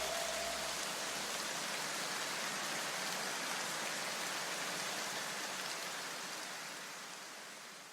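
A steady, even hiss like rain or static that fades away near the end.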